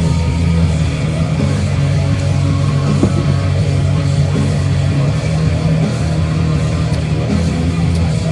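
Rock music playing steadily, with no burp standing out.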